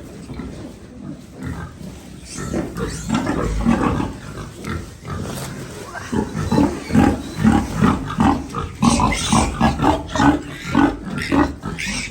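Newborn piglets squealing and grunting in a rapid run of short calls as they are picked up and handled, louder and busier in the second half.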